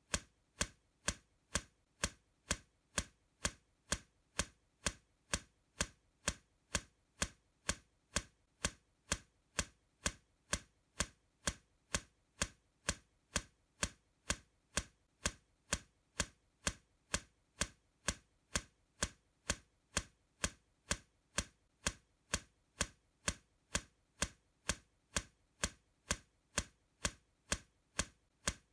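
Steady ticking of a clock, evenly spaced sharp ticks at about two a second, with nothing else under it.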